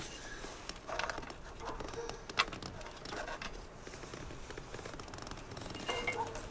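Scattered light clicks and taps of hands working on fittings at a truck's dashboard, with one sharper click about two and a half seconds in.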